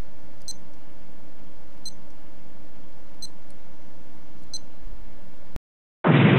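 A bomb's digital countdown timer beeps four times, about once every second and a half, over a steady hum and hiss. The sound cuts off suddenly, and after a brief silence a loud rushing blast of the bomb going off begins near the end.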